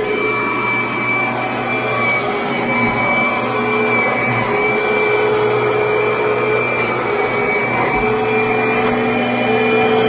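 Upright vacuum cleaner running steadily while being pushed across carpet: a continuous motor drone with a high steady whine over it.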